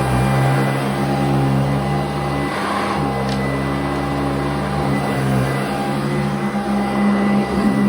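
Sanitaire commercial upright vacuum running on carpet: a steady motor hum with a thin steady whine over it.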